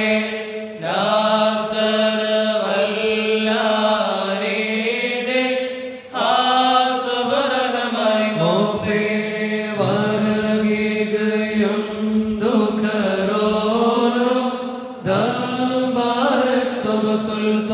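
Syriac liturgical prayer chanted by voices in long sung phrases, with short breaks for breath about six and fifteen seconds in.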